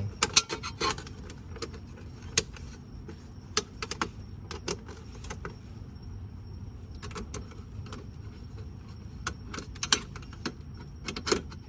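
Scattered light clicks and rattles of a plastic underbody cover and its quarter-turn fasteners being fitted and turned with a flathead screwdriver, in a quick cluster at the start and in small groups through the rest.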